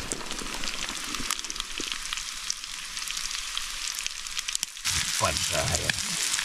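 Breaded pike pieces sizzling as they fry in a pan over a wood fire, a steady hiss with small crackles that gets louder about five seconds in.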